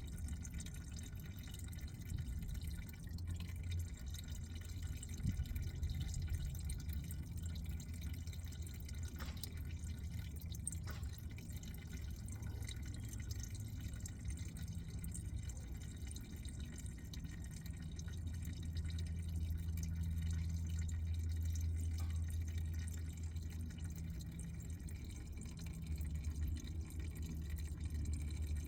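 Engine oil dripping and trickling out of the oil pan into a drain pan, over a steady low rumble.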